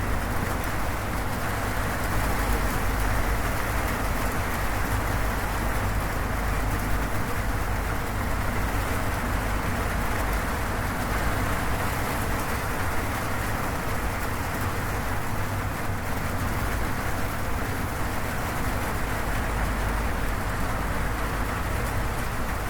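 Steady heavy rain on a zinc sheet roof, an even hiss with a constant low rumble underneath.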